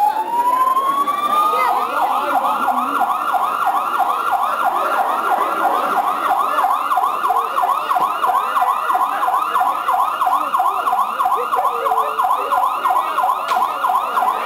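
Police-style siren: a slow wail rising, then switching a couple of seconds in to a fast yelp of about three sweeps a second that keeps going steadily.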